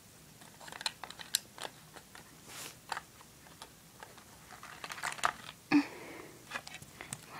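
Plastic toys being handled and shuffled on carpet: scattered small clicks, taps and rustles, with a brief short voice sound about three-quarters of the way through.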